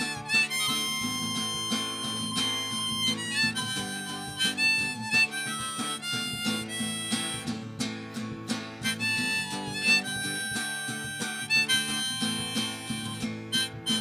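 Instrumental break: a harmonica playing a melody over a strummed acoustic guitar.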